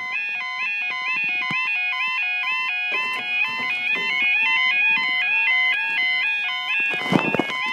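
Railway level crossing audible warning alarm sounding: a loud electronic warble of rapidly alternating tones, repeating steadily, warning that the barriers are lowering for an approaching train. About seven seconds in, a brief rush of noise passes over it.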